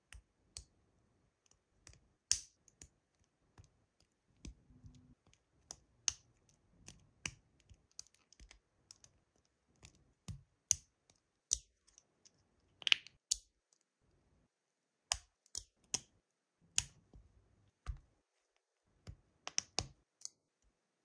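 LEGO plastic parts clicking and snapping as a wheel, axle and Technic connectors are handled and pressed together, in irregular sharp clicks with a loud pair about two-thirds of the way through.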